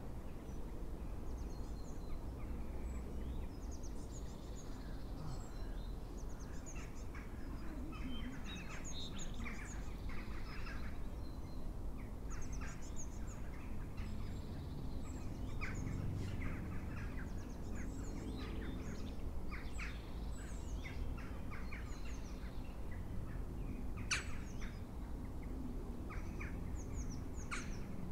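Wild birds calling outdoors: a dense, irregular run of short chirps and calls, some close together in quick series, over a steady low rumble of background noise.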